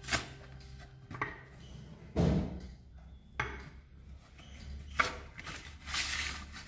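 Plastic bucket being handled: scattered knocks and rubbing, the loudest knock about two seconds in.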